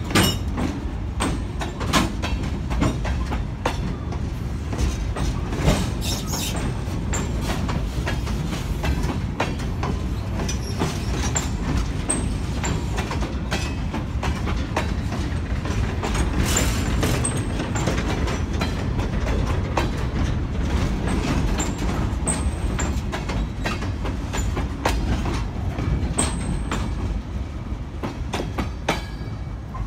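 Empty steel gondola cars of a freight train rolling past: a steady low rumble with repeated clicks and clanks from the wheels over the rail joints, and a few brief high squeaks. It grows a little quieter near the end as the last car goes by.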